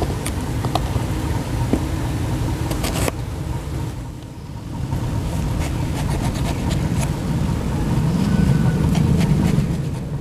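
Kitchen knife slicing eggplant into rounds on a wooden cutting board, with scattered sharp taps of the blade on the board, over a steady low rumble.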